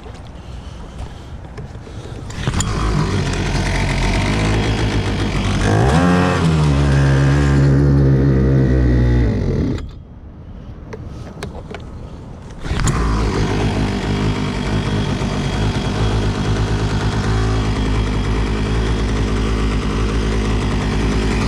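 Small HangKai 3.6 hp two-stroke outboard motor, brand new and tough to start, catching about two seconds in and revving up with a rising pitch near six seconds. It cuts out just before ten seconds, then is running steadily again from about thirteen seconds on.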